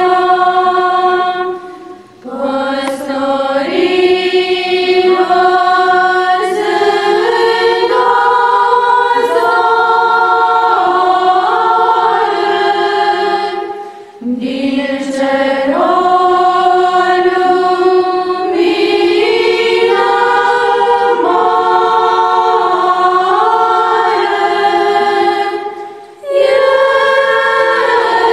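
Choir singing in several parts, in long phrases with a brief breath pause about every twelve seconds.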